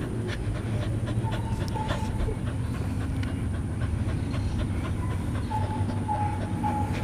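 Dog panting right at the microphone.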